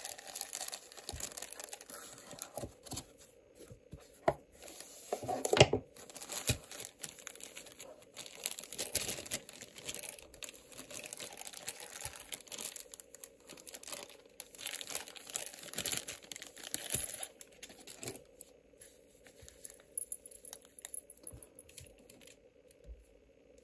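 Clear plastic bag crinkling and tearing as a wristwatch is unwrapped from it, in irregular rustles with the loudest crackle about five and a half seconds in. The crinkling stops about eighteen seconds in, leaving only a faint steady tone.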